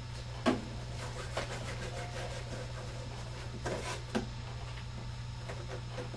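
Cardboard pieces being handled and pressed together on a worktable: a sharp knock about half a second in, then softer taps and rubbing, over a steady low hum.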